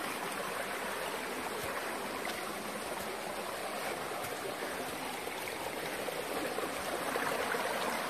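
Shallow rocky stream running over and between boulders in small cascades: a steady rush of flowing water, a little louder near the end.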